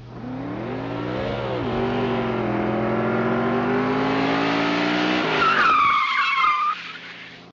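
Intro sound effect of a race car engine revving, with a rise and fall about a second in and then a slow steady climb. A tyre screech comes in about five seconds in, and the sound drops away sharply near the end.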